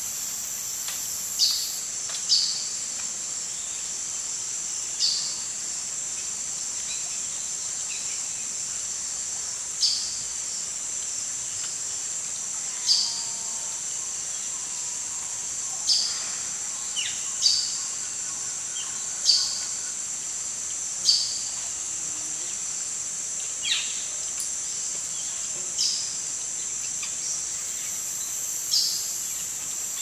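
Rainforest ambience: a steady high-pitched insect drone, with short, falling chirps every couple of seconds.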